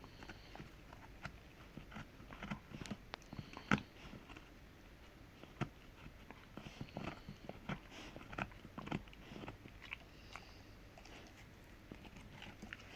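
A Rottweiler gnawing a hard hoof chew: irregular crunches and clicks of teeth on hoof, with one louder crack about a third of the way in.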